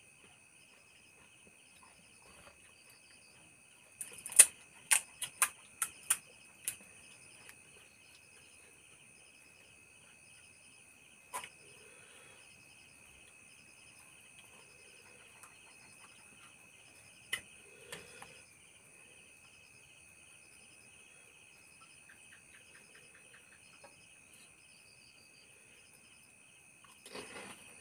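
Night insects chirping in steady, high, pulsing trills. About four seconds in comes a quick run of sharp clicks and cracks, with a few more later, as crisp pani puri shells are cracked, filled with a spoon and eaten.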